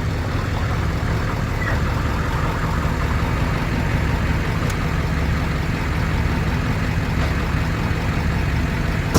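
An engine idling steadily, a low, even rumble with no change in speed.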